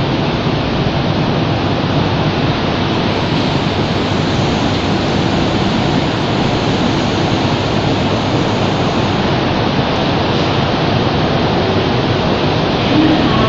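Steady, even rushing noise on a metro station platform beside a train standing with its doors open, with no separate clunks, chimes or departure sounds.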